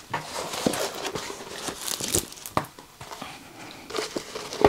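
Diamond painting canvas with its plastic cover film being unrolled and handled, crinkling and rustling unevenly with a few sharper crackles.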